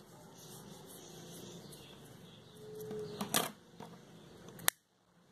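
Small scissors snipping ribbon and the ribbon being handled, with a light clatter about three seconds in as the scissors are set down on the table and a sharp click near the end.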